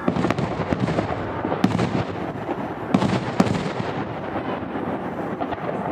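Aerial fireworks bursting over a continuous crackle, with several sharp bangs, the loudest about a second and a half in and twice around three seconds in.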